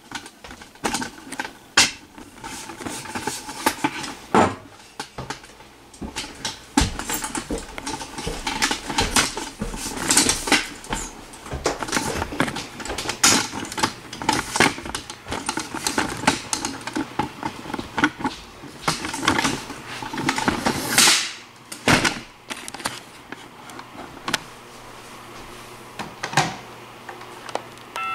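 Footsteps walking and climbing stairs, a run of irregular thuds and knocks mixed with rustling handling noise. For the last several seconds the steps stop and only a few soft clicks remain.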